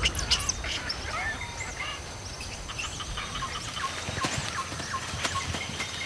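Rainforest ambience: many short chirping and whistling bird calls, some rising and falling, scattered over a thin steady high tone.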